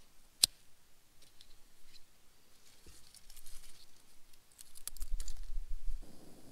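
One sharp click about half a second in, then scattered faint crackling and crinkling as wrapping paper and dry sticks catch in a small kindling fire.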